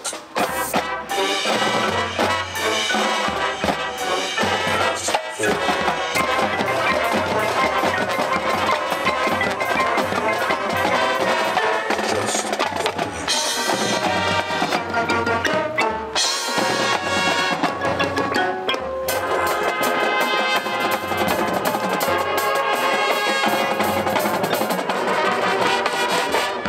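Marching band playing, with winds over drums and percussion keeping a steady pulsing beat; the music breaks off for a moment a few times.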